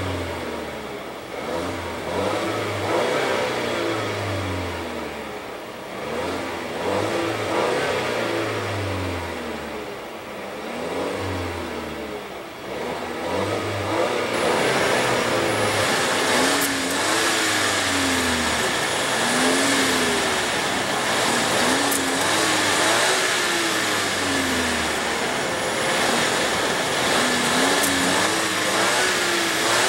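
2016 Volvo XC90's 2.0-litre supercharged and turbocharged four-cylinder engine revved again and again in Park, each rev rising and falling back, about every two to three seconds. The first half is heard from inside the cabin; from about halfway through it is heard at the exhaust tips, louder and brighter.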